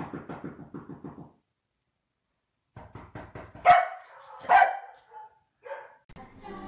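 A Komondor dog barking: two loud, sharp barks about a second apart near the middle, with a few shorter, quieter calls around them. Music comes in near the end.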